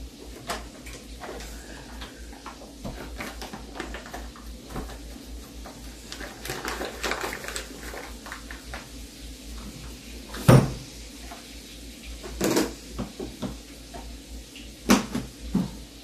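Kitchen clatter of cookware being handled: pots, lids and utensils knocking and clanking, with one loud clank about ten seconds in and another about two seconds later.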